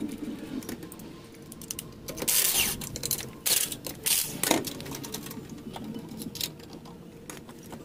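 Hand-tool work on a car: irregular rapid clicking and clattering, with a few short hissing bursts about two to four and a half seconds in.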